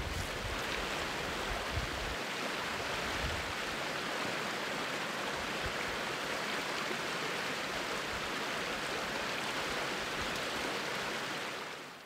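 Shallow, rocky mountain creek rushing steadily over stones, fading out near the end.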